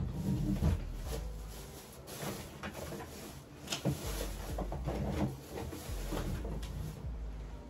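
Things on a dresser being handled and set down: a run of irregular light knocks and clatters, with rustling in between.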